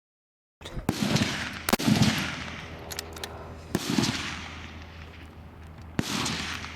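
Rifle shots on a long-range firing line: about four sharp cracks a second or two apart, each trailing off in a long rolling echo.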